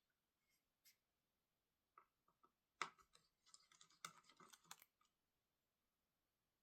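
Light clicks and clatter of small hard parts being handled, in a burst of about three seconds with a sharp knock about three seconds in.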